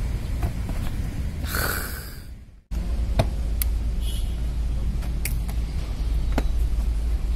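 Wind rumbling on a phone's microphone, with a few sharp knocks and scuffs of shoes and hands on concrete walls during parkour climbs and vaults. A louder rush of noise about a second and a half in, then the sound fades out and cuts back in just before three seconds.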